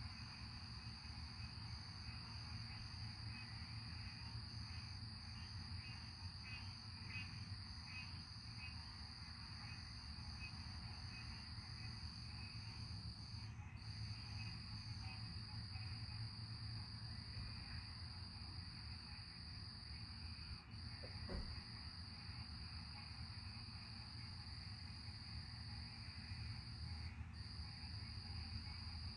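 Night insects trilling steadily in one high continuous note that breaks off for a moment a few times, over a faint low background rumble. A single short knock a little past two-thirds of the way through.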